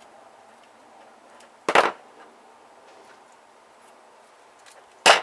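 Two sharp clicks about three seconds apart, the first a little longer, from hand tools working parts off an electronics circuit board being stripped for scrap.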